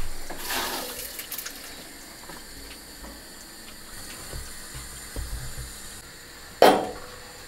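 Water running and splashing, with one sudden louder sound about six and a half seconds in.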